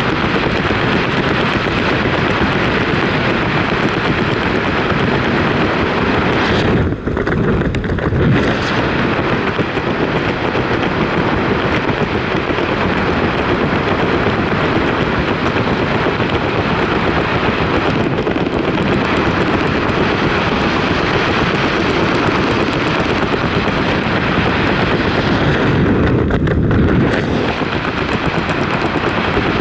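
Steady, loud rushing of wind buffeting the microphone, easing briefly about seven seconds in and again near the end.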